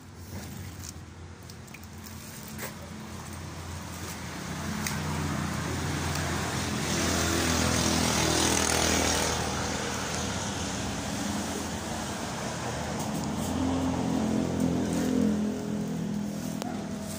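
Engine of a passing motor vehicle, growing louder to a peak about eight seconds in and fading, then swelling again near the end.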